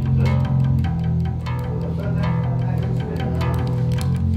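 Rock band music: an electric bass playing sustained low notes under electric guitar.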